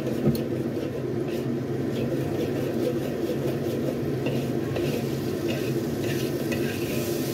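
A metal spatula stirring and scraping through a garlic and soybean-paste sauce in a wok, over a steady sizzle as the sauce simmers down to thicken. There are short scrapes of the spatula against the pan every half second or so.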